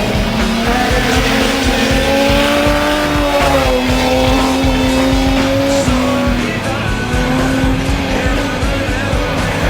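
Stock Omega race car engines running hard, their pitch rising and falling and dropping back a couple of times as the drivers work the throttle.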